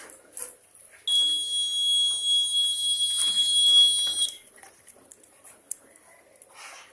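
Small battery-powered buzzer of a homemade clothes-clip door alarm sounding one steady high-pitched tone for about three seconds, starting and stopping abruptly. The tone means the card separating the clip's contacts has been pulled out by its thread, closing the circuit.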